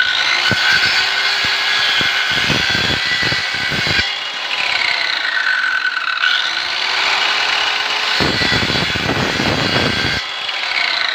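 INGCO corded circular saw running at speed with a steady high motor whine, its blade cutting through a 3/4-inch gmelina plank in two spells about two seconds long, about two seconds in and again about eight seconds in; the whine sags and recovers around the cuts.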